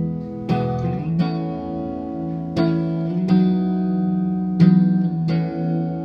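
Electric guitar played through a Marshall JVM410H all-valve amp head on its clean channel with reverb: six chords strummed one after another, each left to ring.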